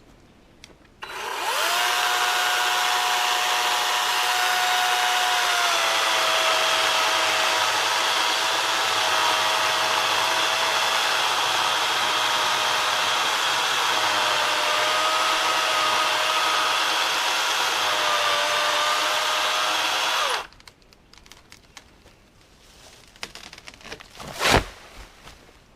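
Battery-powered electric chainsaw running for about twenty seconds through a dead tree's trunk in the felling cut, its whine dipping slightly as the chain bites, then cutting off abruptly. A few seconds later come scattered crackles and one sharp loud crack as the tree goes over.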